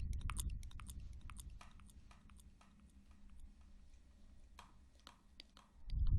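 Close-miked ASMR trigger sounds: sparse, crisp clicks and crackles over a low rumble. The rumble fades away over the first two seconds and swells back loudly near the end.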